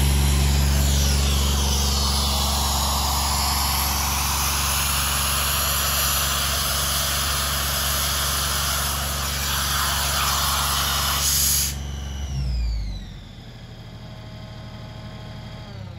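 Atlas Copco XAS 66 diesel compressor-generator running steadily with a loud hiss of air. About twelve seconds in the hiss cuts off and the diesel engine stops. A quieter hiss with a falling whine follows, the compressed air venting as the machine blows down after shutdown.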